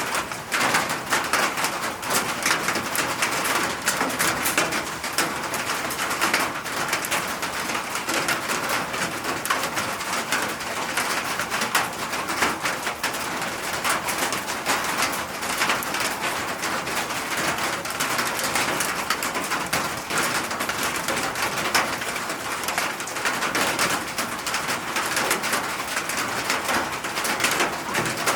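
Steady rain falling, a dense, continuous patter of drops on surfaces.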